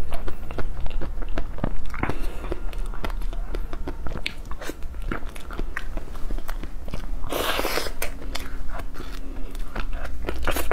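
Close-miked ASMR eating sounds: biting and chewing ice cream, with many sharp crisp clicks and crunches. One longer, louder noisy burst about seven seconds in.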